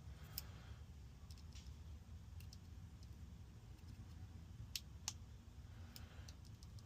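Faint, scattered metallic clicks of a lock pick and tension wrench working the pins of a Schlage deadbolt cylinder, which has security pins; two sharper clicks come close together about five seconds in.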